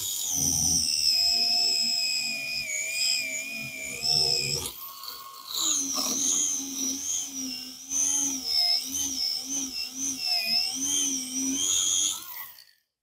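Slot car's small electric motor spinning the rear wheels at speed, a high whine that wavers in pitch as the Paul Gage urethane tires drag against sandpaper held under them to true them. It dips briefly about five seconds in and cuts off near the end.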